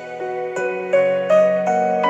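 Background music: a gentle solo piano piece, notes struck one at a time in a slow melody over held chords.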